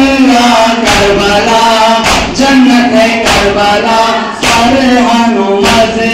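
Men chanting a Muharram noha in Urdu/Hindi, with rhythmic chest-beating (matam) strikes landing about once a second.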